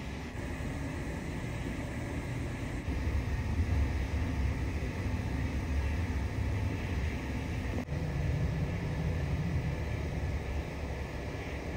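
Steady low rumble of the Sunflower Murasaki ferry's engines and ventilation, with a faint hiss over it, louder from about three seconds in.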